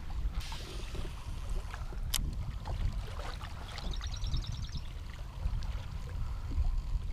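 Kayak on open water with wind on the microphone and water lapping at the hull. There is a sharp click about two seconds in, and a short run of fast, high ticks about four seconds in.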